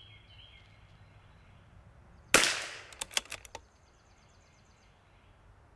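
A single .22 LR rifle shot from a CZ 457 bolt-action about two seconds in, followed within a second by a quick series of sharp clicks as the bolt is worked to chamber the next round.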